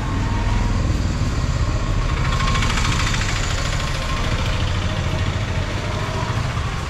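Street traffic: a motor vehicle engine running with a steady low rumble, and a rushing hiss that swells about two seconds in and fades about four seconds in.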